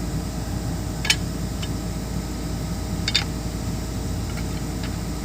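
Hitachi 210 excavator's diesel engine running steadily at idle, with two sharp ringing metal strikes of a hammer on steel, about a second in and a quick double about three seconds in.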